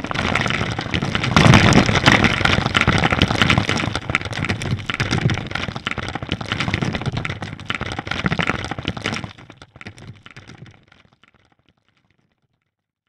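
Crumbling, cracking sound effect of many blocks breaking apart and tumbling, a dense crackle that is loudest about two seconds in, thins out after about nine seconds and fades away, leaving silence near the end.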